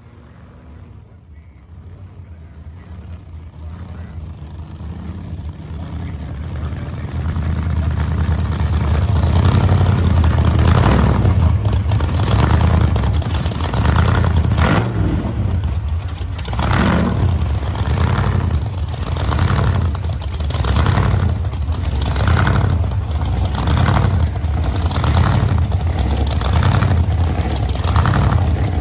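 Gasser hot rod engine growing louder over the first several seconds, then running loud with repeated revs, about one surge a second.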